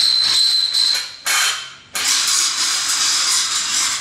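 Cordless electric drill working on a steel table frame in three bursts: a first of about a second, a short second one, and a longer run of about two seconds that stops near the end, with a high-pitched grinding sound.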